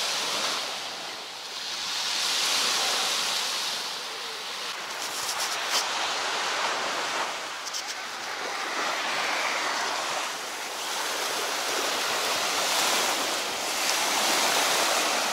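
Ocean surf: small waves breaking and washing up on a sandy beach, loud, swelling and easing every few seconds.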